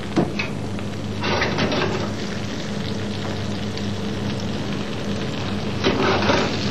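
Floured red mullet frying in butter and oil in a pan: a steady sizzle that swells louder about a second in and again near the end.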